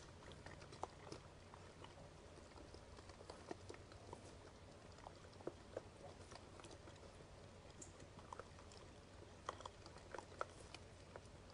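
Faint, irregular clicks and crunches of a small animal chewing seed close to the trail camera, over a low steady hum.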